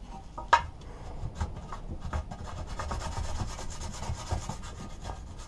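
Sanding block rubbed back and forth over a painted sheet-metal lawnmower engine cover, scuffing the paint to give it a rough key for primer; the strokes grow quicker and busier about halfway through. A single sharp knock about half a second in.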